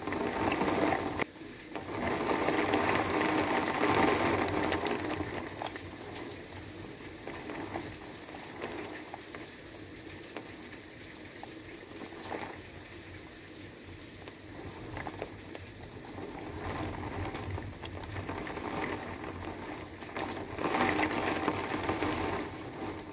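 Heavy rain pouring down and splashing, swelling louder near the start and again near the end, with scattered sharp taps of drops striking hard surfaces.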